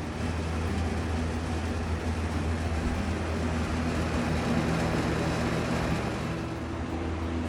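Electric box fan running: a steady motor hum under a constant rush of air.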